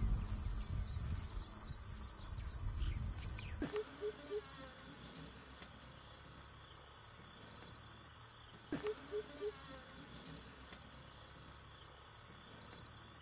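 A dense, high-pitched insect chorus. About four seconds in it changes to a different chorus with a steady high whine. A short run of three or four low pipping calls sounds twice.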